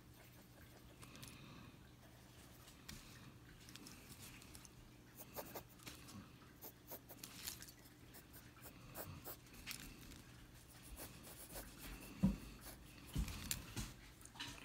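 Pencil sketching on sketchbook paper: faint, irregular scratching strokes, with a couple of soft low knocks near the end.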